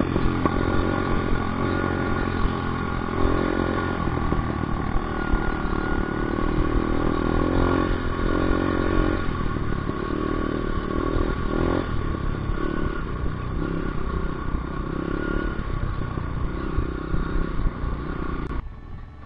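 125 cc trail motorcycle engine running on board over a rough dirt track, its pitch rising and falling with the throttle. The engine sound cuts off abruptly near the end.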